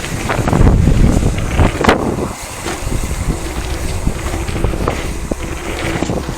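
Wind buffeting the microphone as a low rumble, with scattered knocks and rattles, loudest in the first two seconds and settling to a steadier rush after that.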